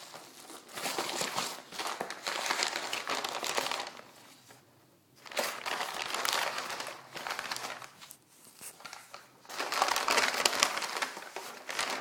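Packing material in a shipping box crinkling and rustling as it is pulled apart by hand, in three bouts separated by short pauses.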